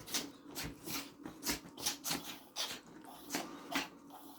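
Several toy terriers sneezing in quick succession, about ten short, sharp sneezes. These are excitement sneezes, the dogs sneezing from joy.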